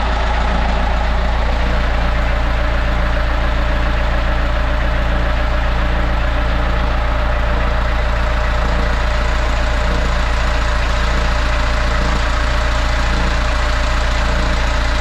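Sailboat's inboard diesel engine running steadily at idle with an even, loud low hum, having been got going again after its fuel system was bled of air.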